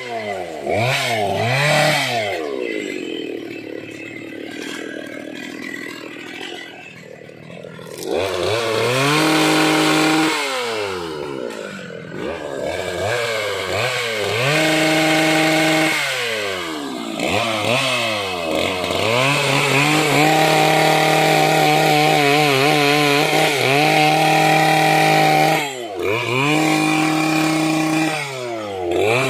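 Two-stroke petrol chainsaw revving and cutting dry, hard teak. About two seconds in it drops toward idle and runs quieter. Around eight seconds in it picks up to high revs, its pitch sagging and recovering under the load of the cut, with a brief dip near the end.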